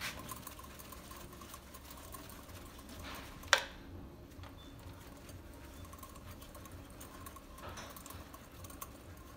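Faint handling of a compression tester: small clicks and rattles as its hose is threaded into a spark plug well, with one sharp click about three and a half seconds in.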